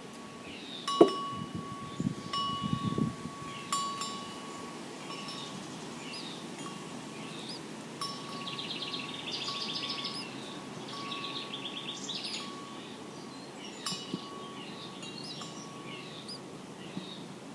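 Wind chime ringing, struck several times and left sustaining one clear tone, while small birds chirp in quick high runs near the middle.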